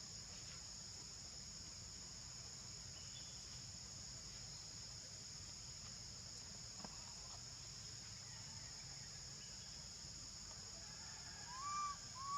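Steady, unbroken high-pitched drone of insects, two shrill bands held throughout. Near the end come two short calls that rise and fall in pitch.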